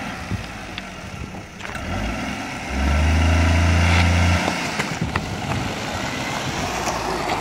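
Peugeot 301 car crawling over a rough gravel road with its engine running as a low hum. The hum swells much louder for about a second and a half in the middle, under load over the broken surface, while scattered sharp clicks of stones sound under the tyres.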